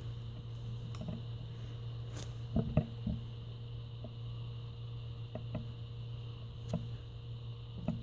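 Hands squeezing a soft foam bread-slice squishy toy: quiet handling noise with scattered small clicks and knocks, the loudest a little under three seconds in, over a steady low hum.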